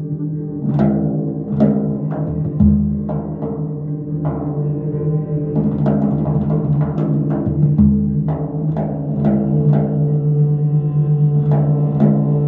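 Live instrumental music by a jazz trio: sharp struck notes that ring out, repeating over held low tones.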